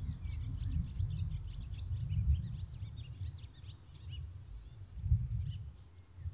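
Small birds chirping in quick, rapid notes, thick at first and thinning out after about three and a half seconds, over an uneven low rumble that swells twice.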